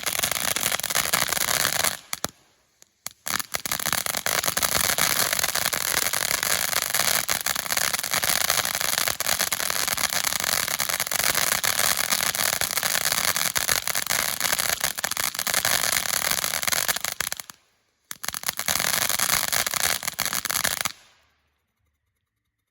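Ground fountain firework spraying, a dense hiss full of fine crackles. It cuts out briefly twice, once early on and once near the end, then dies away about 21 seconds in as it burns out.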